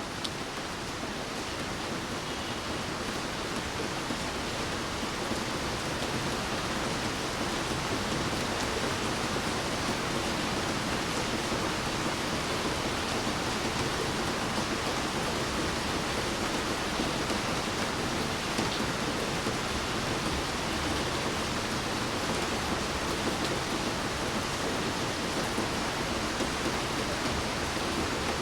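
Steady heavy rain falling, an even dense hiss of drops with no distinct patter, growing slightly louder over the first few seconds.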